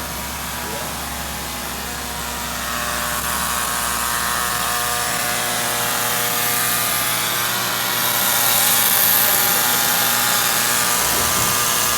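Sawmill machinery running, a steady hum with several held tones. From about three seconds in the noise grows louder and hissier, peaks around nine seconds, then eases off shortly before the end.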